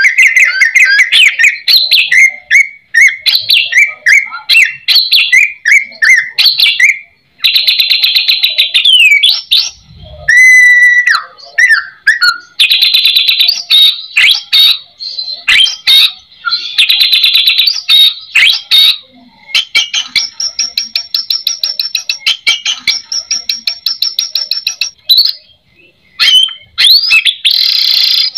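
White-rumped shama singing loudly: a fast, varied run of trills, rapid repeated notes and sliding whistles, in phrases broken by short pauses.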